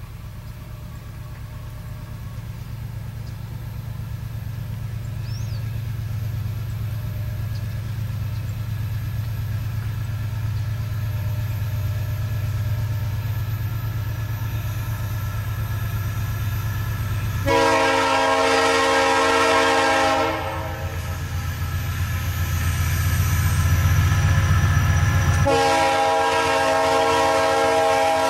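Diesel freight locomotive rumbling, growing louder as it approaches, then its air horn sounds twice: a blast of about three seconds, and a second long blast near the end.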